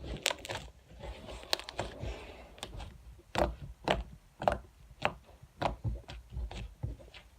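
Slime being squeezed and stretched by hand, air pockets bursting in a series of sharp pops and squelches, about a dozen at irregular intervals, over a soft squishing in the first couple of seconds.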